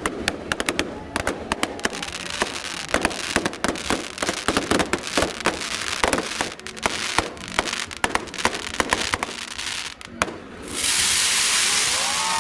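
New Year's Eve fireworks going off: rapid, irregular cracks and bangs, many to the second, then a loud steady hiss from about eleven seconds in.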